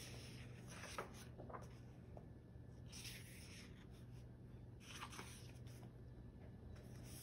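Pages of a paperback photobook being turned by hand: two faint papery swishes, with a light tick about a second in, over a low steady hum.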